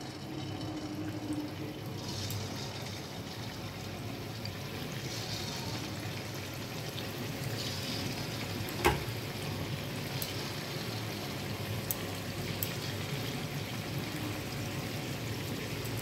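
Bread-dough gulab jamun balls sizzling and bubbling as they deep-fry in hot oil in a kadhai on a lowered flame, with a short hiss each time a fresh ball goes in. A single sharp knock comes about nine seconds in.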